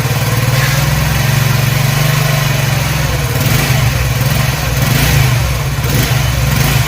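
Honda CD70's single-cylinder four-stroke engine idling steadily with the clutch lever pulled in, a mechanical noise coming from inside the engine over the idle. The mechanic takes this noise for a faulty clutch bearing; it goes away when the clutch is released.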